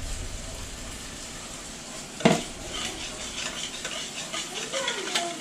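Wire whisk stirring in a bowl of tomato sauce that is being thinned with broth, scraping and ticking against the bowl as it is mixed lump-free. A single sharp knock comes about two seconds in.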